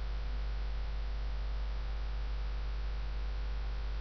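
Steady low mains hum with a faint even hiss: electrical noise picked up by the screen recording's microphone.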